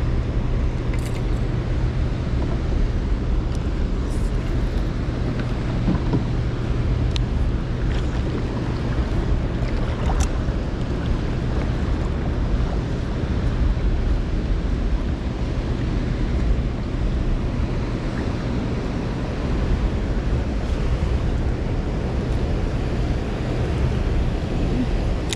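Steady rumbling wind and water noise on an open-air microphone, with a constant low hum underneath and a few faint clicks.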